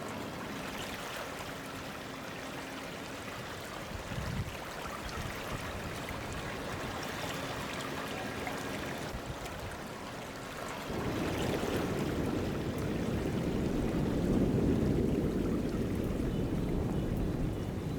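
River water rushing steadily, growing louder and deeper from about eleven seconds in.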